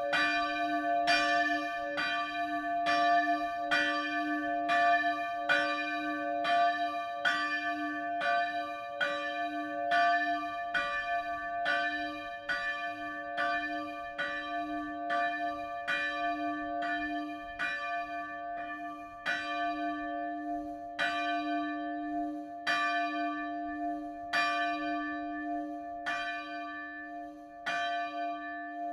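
A single church bell swinging in its frame, its clapper striking over and over with a ringing tone that carries on between blows. The strokes come quickly at first, then spread out to about one every second and a half, growing gradually quieter.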